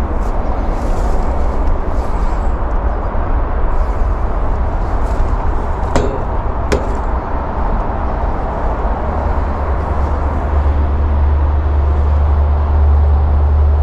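Steady outdoor background noise with a heavy low rumble that swells near the end, and two sharp clicks about six and seven seconds in.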